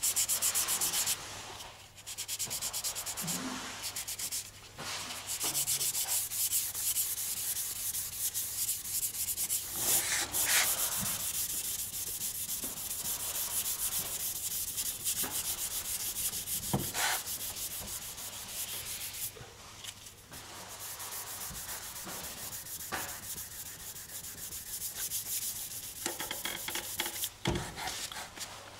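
Hand sanding of a car's painted steel wheel-arch lip with a fine abrasive pad: quick back-and-forth scrubbing strokes with a few brief pauses, keying the old paint for repainting.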